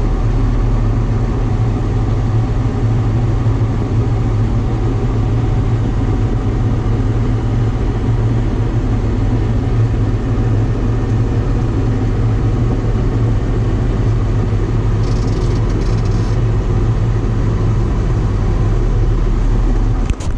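John Deere combine harvester running steadily while harvesting soybeans: a constant low drone that does not change.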